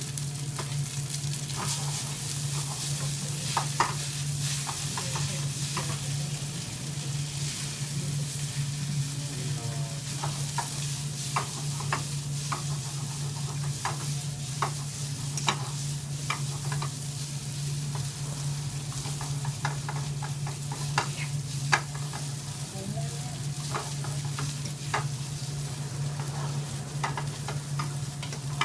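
Noodles frying in a pan over a gas flame, stirred and tossed with long cooking chopsticks: a steady sizzle broken by many short clicks and scrapes of chopsticks against the pan, over a steady low hum.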